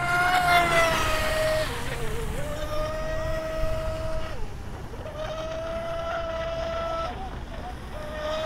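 High-pitched whine of a brushless electric RC speedboat running flat out across the water. The pitch holds steady and dips briefly three times: about two seconds in, halfway through, and near the end.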